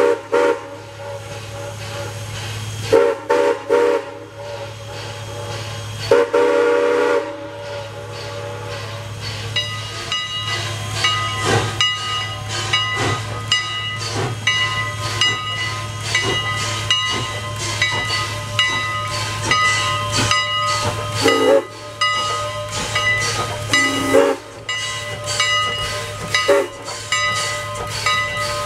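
Strasburg Rail Road No. 89, a 1910 Canadian Locomotive Company 2-6-0 Mogul steam locomotive, sounding its steam whistle in several blasts: short toots in the first few seconds, a longer blast about six seconds in, and more short toots near the end. Working steam exhaust and a quick, rhythmic metallic ringing grow in from about ten seconds in as it passes close by.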